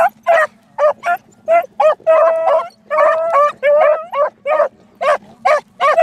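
Beagles giving tongue on a rabbit's scent trail: short, quick barks about two or three a second, broken by a couple of longer, drawn-out bawls in the middle.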